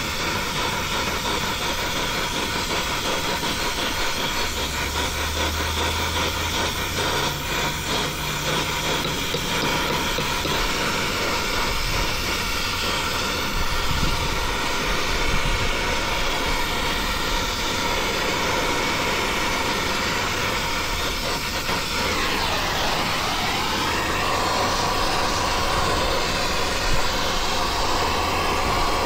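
Brazing torch flame hissing steadily while a copper suction line is heated and brazed onto a replacement mini-split compressor, with a steady machinery hum underneath. About three-quarters of the way through, a tone dips down in pitch and comes back up.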